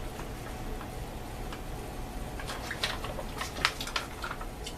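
Scattered soft clicks and crinkles of a plastic MRE drink pouch being handled and sipped from, mostly in the second half.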